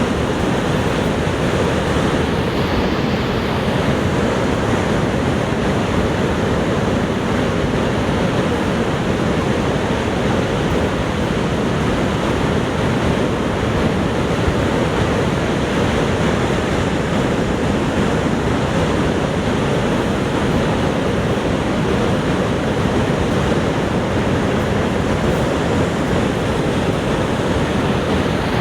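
Niagara Falls' waterfall: a steady, unbroken rush of falling water, heaviest in the low range, with no change throughout.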